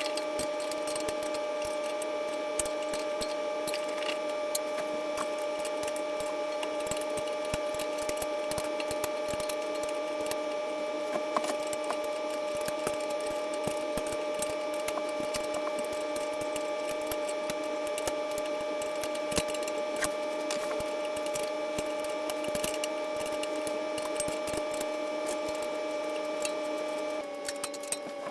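Mini excavator running at a steady speed, a continuous pitched hum from its engine and hydraulics, with scattered light metallic clicks and taps from hand work on the bucket quick coupler. About a second before the end the running note drops slightly in pitch and gets quieter, as the throttle is eased.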